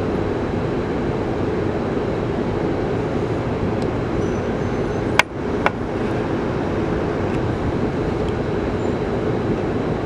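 Steady rumbling background noise, with two sharp clicks a little past halfway.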